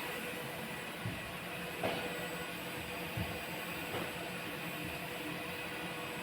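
Automatic wire-harness lug crimping machine running with a steady mechanical hum and whine, broken by four short sharp knocks about a second apart from its working mechanism.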